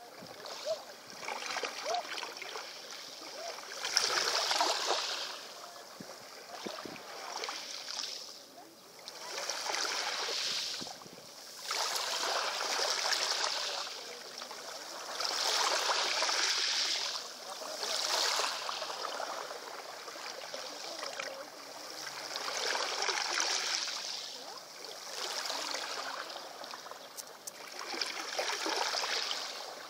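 Small sea waves washing in over a pebble beach, one wash swelling up and falling away every two to three seconds.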